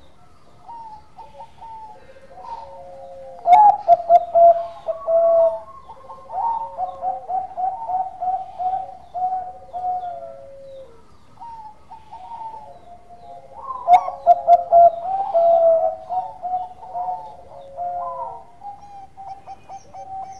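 Bangkok-type zebra dove (perkutut) in full song, cooing. Two loud bouts, one starting a few seconds in and one about halfway, each open with strong coos and run into a fast string of short, even notes. Under them a lower, drawn-out falling coo repeats every couple of seconds.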